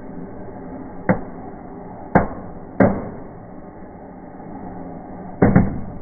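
Firework fountain hissing steadily, with sharp firework bangs about one, two and three seconds in and a quick double bang near the end.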